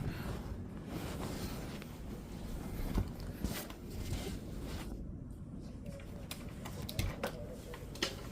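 A few sharp clicks and knocks over a low steady rumble, the sounds of a household fan being switched off and unplugged.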